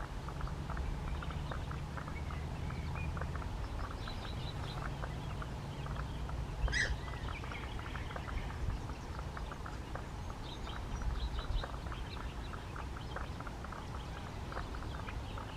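Wetland ambience: birds chirping in short bursts, with one sharp call about seven seconds in, over a steady patter of small clicks and a low rumble.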